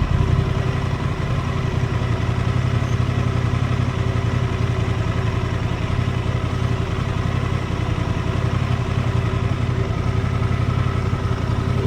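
Honda Transalp 750's parallel-twin engine running at a steady note while the motorcycle cruises, with wind rumble on the action camera's built-in microphone.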